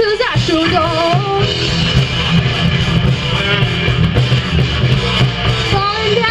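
Live rock band playing: electric guitars, bass and drum kit in an instrumental passage with a loud, steady beat and a heavy bass.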